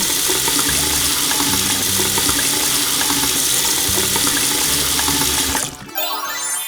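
Water running steadily, like a tap filling a sink, for about six seconds over quiet background music, then cutting off as a rising run of chime-like tones begins near the end.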